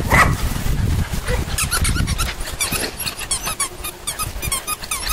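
Puppies whining and yipping in many short, high-pitched squeaks, coming quickly and rising and falling in pitch, after a second or so of scuffling rumble.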